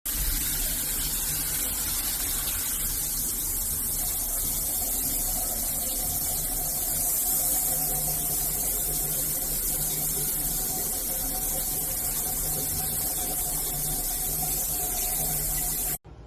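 Water spraying steadily from a shower head, a constant loud hiss that cuts off suddenly near the end.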